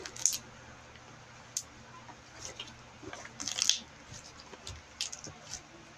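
Slime being squished and pressed by hand, giving short wet crackles and pops, with a burst of them about three and a half seconds in.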